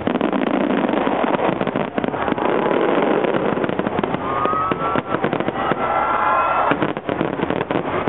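Fireworks display: a dense, continuous barrage of shell bursts and crackling, with a couple of thin whistles about halfway through.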